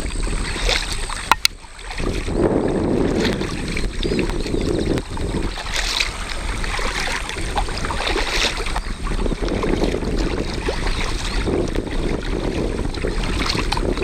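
Kayak paddle strokes dipping and splashing in the water about every two and a half seconds, over a steady rush of wind on the microphone. Two sharp clicks come about a second and a half in.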